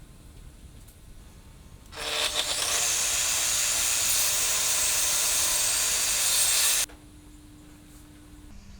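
Power saw cutting through wood: a loud, steady cut of about five seconds that starts about two seconds in and stops abruptly.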